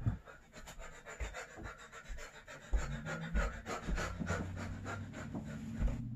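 Rustling and soft thumps of a person getting up off a bed and moving about a small room, with a low steady hum setting in about halfway through.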